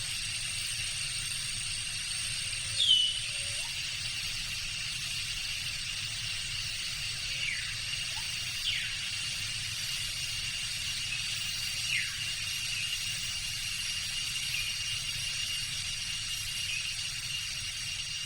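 Tropical jungle ambience: a steady drone of insects holding several high pitches, with a few short, falling bird whistles, the loudest about three seconds in and three more spread through the middle.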